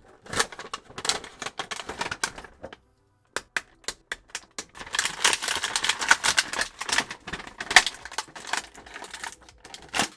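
Plastic and cardboard action-figure packaging being handled and opened: dense, irregular crackling and clicking, with a short pause about three seconds in.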